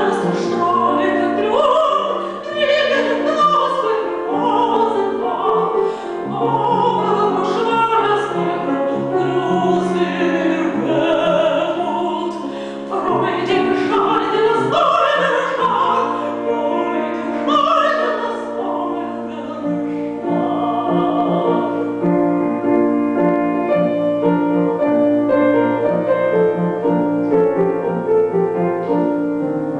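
Classical art song: a woman sings in full operatic voice with wide vibrato over grand-piano accompaniment. About twenty seconds in the voice stops and the piano plays on alone with steady repeated chords.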